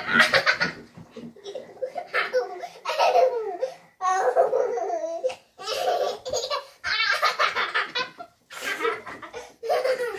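Children laughing hard, in several bursts of rapid, pulsing laughter with short breaks between them.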